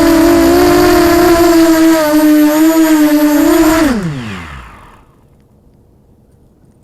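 Eachine Falcon 250 FPV quadcopter's brushless motors and propellers running with a steady whine, then spinning down in a falling glide about four seconds in and stopping as the flight ends.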